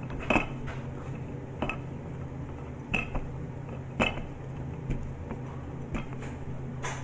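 Wooden rolling pin working a sheet of puff pastry on a hard worktop: about six sharp knocks and clicks at irregular intervals as the pin is set down and pushed, over a steady low hum.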